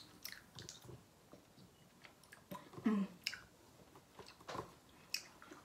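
Faint chewing of hard, sticky blue raspberry Laffy Taffy: scattered wet mouth clicks and smacks, with a brief hummed "mm" about three seconds in.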